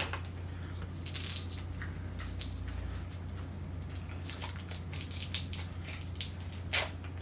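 Crinkling of a small candy wrapper being picked open by hand, in short irregular crackles with a sharper burst about a second in and another near the end.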